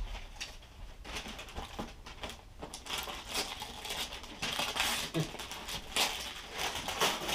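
Shiny gift-wrapping paper crinkling and tearing as a present is unwrapped, in irregular rustling crackles.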